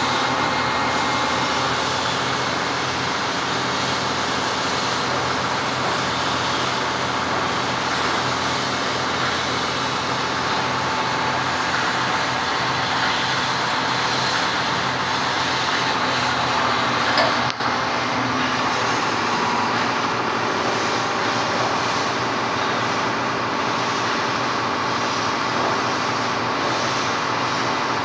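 Truck-mounted mobile crane's engine running steadily, with a brief break about two-thirds of the way through.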